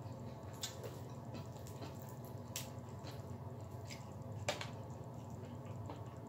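A person eating fried chicken wings close to the microphone: wet chewing and mouth sounds, with a few short sharp clicks, the loudest about four and a half seconds in, over a steady low hum.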